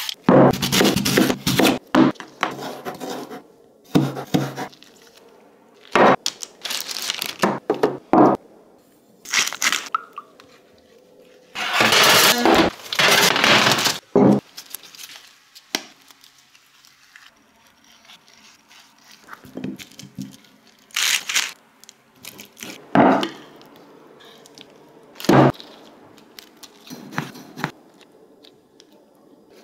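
Food-preparation sounds in short separate bursts: a vegetable peeler scraping the skin off a sweet potato, then scrapes, cracks and thunks as food is handled and dishes are set down on a wooden table.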